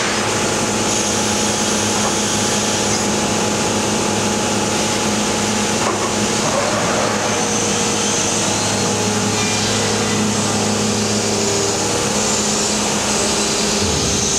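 1995 Morbidelli Author 504 pot-and-rail CNC router running: a steady machine hum made of several held tones over a constant hiss.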